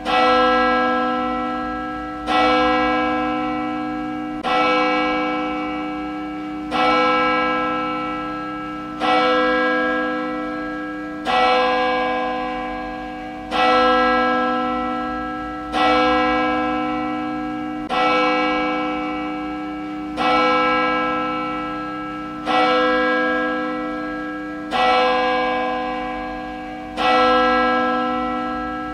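A single church bell tolling at an even, slow pace, about thirteen strokes roughly two seconds apart. Each stroke rings the same rich set of tones and fades slowly, still sounding when the next one lands.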